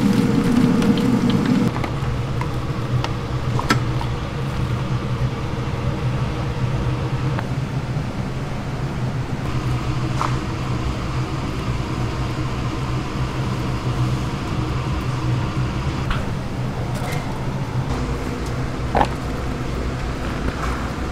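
Freshly fried pork pieces tumbling from a metal strainer into a plastic basket for about the first two seconds, over a steady low mechanical hum. A few faint clicks and rustles follow as the pieces are scooped into paper bowls.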